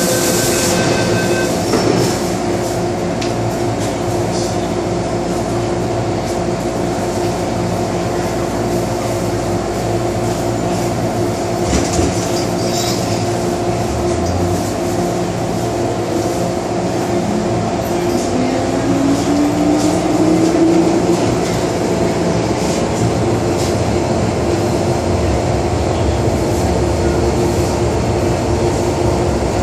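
Interior of an MTR M-Train electric multiple unit: the door-closing beeps end about a second in and the doors shut with a knock. The train then pulls away over steady running noise, with the traction motor whine rising in pitch about two-thirds of the way through as it gathers speed.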